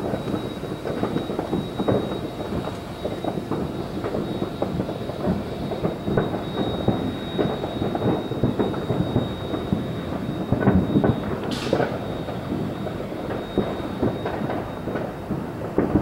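Many distant fireworks going off at once, a continuous rumble of overlapping booms and pops. There is a brief hiss about eleven seconds in.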